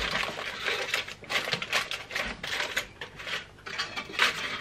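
Aluminium foil crinkling and crackling irregularly as it is pressed and smoothed by hand into an air fryer basket.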